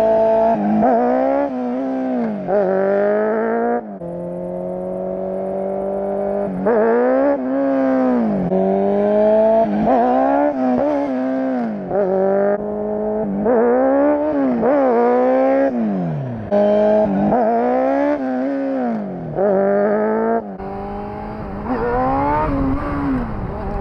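Motorcycle engine revving hard under acceleration, its pitch climbing and falling again and again as the throttle is opened, shifted and closed, with a sharp drop about four seconds in.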